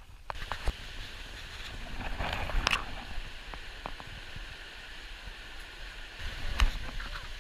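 Shallow river rapids rushing over stones: a steady wash of water noise, swelling briefly about two to three seconds in, with a few sharp clicks on top.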